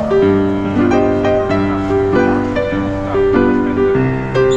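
Background music led by piano: a steady pattern of notes over a held low note.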